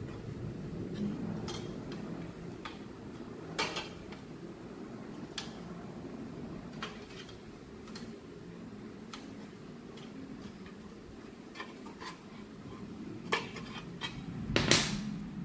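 Light metallic clicks and clinks as a small steel open-end wrench, nuts and bolts knock against thin sheet-steel panels during hand assembly, scattered irregularly, with a louder metal clatter near the end.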